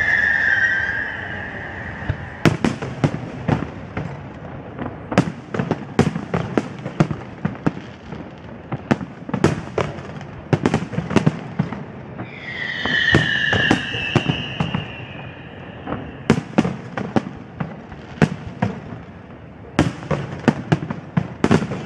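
Fireworks display, with aerial shells bursting in quick, irregular bangs. A falling whistle sounds near the start and again about twelve seconds in.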